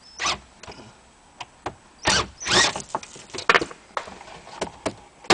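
Phillips screws being backed out of the Jeep Patriot's plastic lower dash trim: a series of short scraping whirs and sharp clicks of tool and plastic, the loudest about two seconds in.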